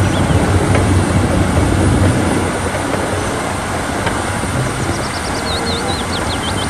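Large crawler bulldozer running under load as it pushes dirt with its blade: a steady, dense diesel engine and machine noise.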